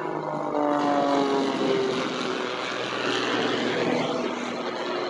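Jet Pitts aerobatic biplane flying its display, the propeller engine note sliding down in pitch during the first couple of seconds and then holding lower, over a steady rushing noise.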